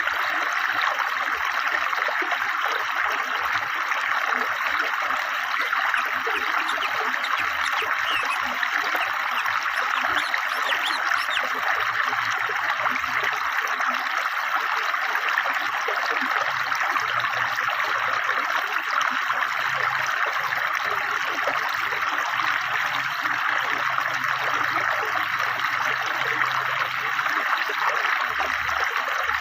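A fast-flowing river, its water running and babbling steadily.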